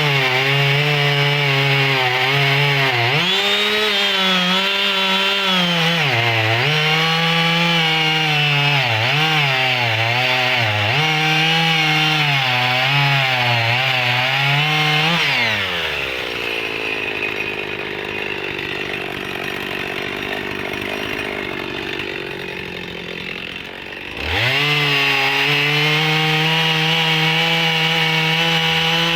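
Husqvarna 55 two-stroke chainsaw cutting thick firewood at full throttle, the engine pitch dipping and recovering again and again as the chain bites into the wood. About halfway through it drops back to idle for several seconds, then revs up again and holds a high steady speed.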